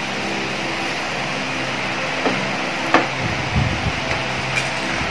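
Steady whir of an electric fan with a low hum, broken by a few light clicks and soft knocks of eating at the table a couple of seconds in.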